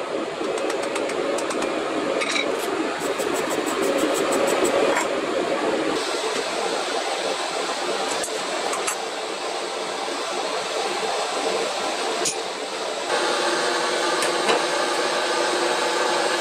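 Hand hammer striking glowing chain-Damascus steel on an anvil: a quick, even run of light blows, about five a second, a few seconds in, then a few single taps, over a steady rushing background noise. Near the end the background turns to a steadier hum.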